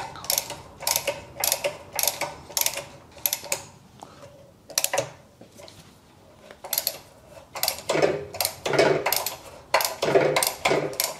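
Ratcheting tap handle clicking in short runs as a Helicoil thread tap is worked back and forth, cutting a new thread in a soft aluminium cylinder head, with a pause of about two seconds midway.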